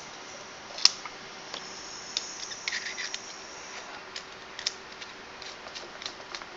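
Small metal clicks and ticks of stainless steel battery-tube parts being handled and screwed together, with one sharp click about a second in and a faint rasp of threads turning in the middle.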